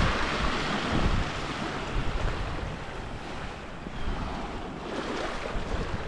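Sea surf washing onto the beach, with wind buffeting the microphone in low rumbles that are heaviest in the first second or so.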